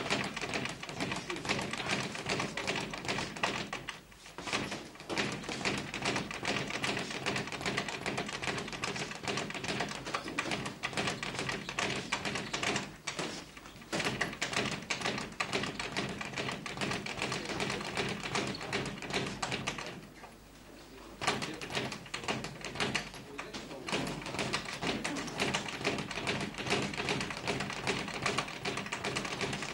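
Rapid, dense tapping and knocking of boxing sparring: gloves landing and feet shuffling on the ring canvas, with brief lulls about four, thirteen and twenty seconds in.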